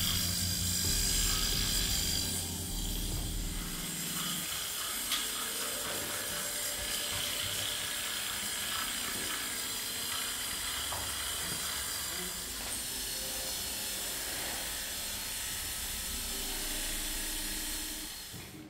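Corded electric animal clippers buzzing steadily as they shave a dog's long fur; the low hum lightens after about four seconds.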